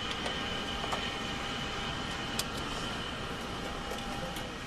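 Steady drone of aircraft noise heard from inside the cabin, with several thin, steady high whines over it and a few faint clicks.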